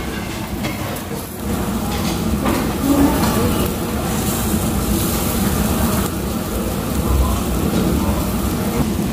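Busy restaurant din: a steady low rumble with hiss and faint background voices of other diners.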